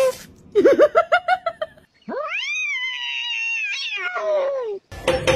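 Cat meowing: a quick run of about eight short chirping meows, then after a pause one long drawn-out yowl that rises, holds and falls away. Near the end, knocks and a steady tone take over.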